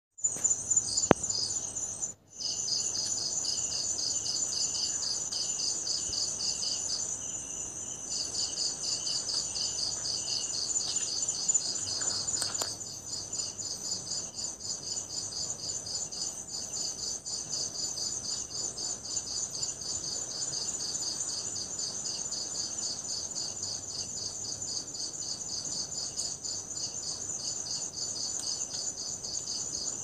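Insect song: a steady high-pitched buzzing trill, with a lower pulsing layer beating a few times a second beneath it. It cuts out briefly about two seconds in.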